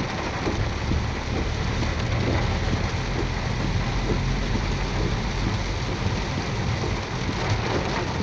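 Heavy rain drumming on a car's roof and windscreen, heard from inside the cabin, with the windscreen wipers sweeping at their fastest setting over a steady low rumble of the car.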